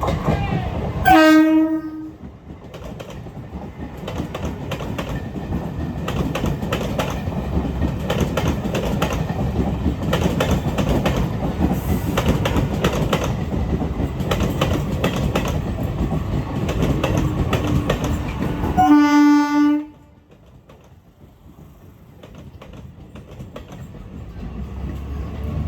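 Electric multiple-unit train passing at speed, with a short horn blast about a second in and another near 19 seconds. Between the blasts the wheels clatter rhythmically over the rail joints. After the second blast the sound drops suddenly to a quieter rumble that slowly builds again.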